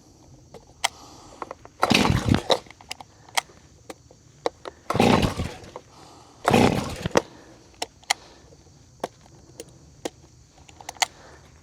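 Stihl MS 271 Farm Boss chainsaw being pull-started: three hard yanks on the starter cord, about 2, 5 and 7 seconds in, with small clicks and knocks between them. The engine does not catch; the owner later dries out a wet spark plug to cure the failed start.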